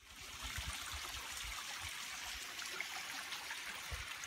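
Small shallow mountain stream trickling over stones: a steady hiss of running water, with a few faint low thumps.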